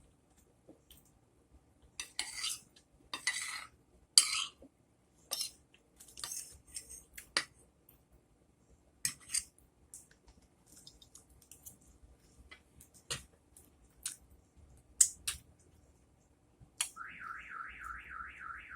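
Cutlery clinking and scraping against a dinner plate in short scattered strokes while eating. Near the end a car alarm starts up outside with a fast, evenly repeating warble.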